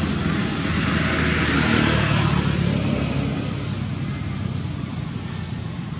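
A motor vehicle's engine running close by, with a steady low hum and road noise. It is loudest about two seconds in, then slowly fades as it moves away.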